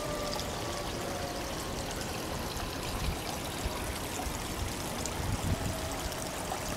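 Steady trickle and splash of water running into a garden koi pond.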